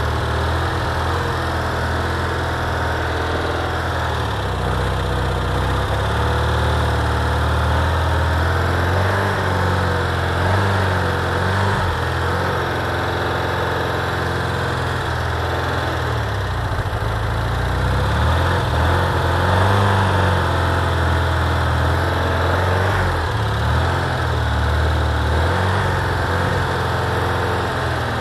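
VW T2 bus engine running steadily with a low hum, its speed wavering slightly now and then.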